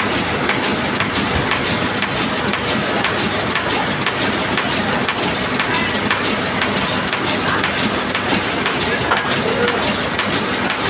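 Steady, dense machinery noise, with faint voices in the background.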